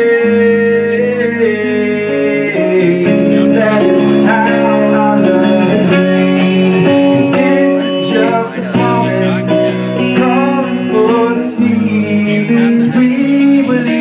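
Live band music with guitar.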